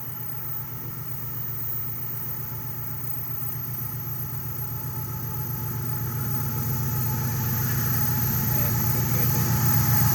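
Diesel-electric locomotives of an iron-ore train approaching, a low engine rumble growing steadily louder.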